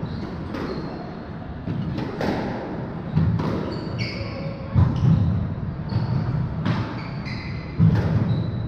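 Squash rally: the ball cracking off rackets and the walls every second or so, ringing in the enclosed court, with short squeaks of sneakers on the hardwood floor between hits.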